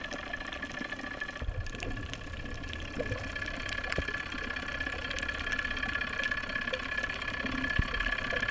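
Towing boat's engine and propeller heard underwater: a steady whine made of several steady tones over a low rush of water, with a few faint clicks.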